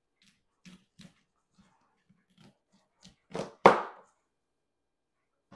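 Knife cutting broccoli on a plastic cutting board: a few light taps and cuts, then two louder chops about three and a half seconds in, the second the loudest.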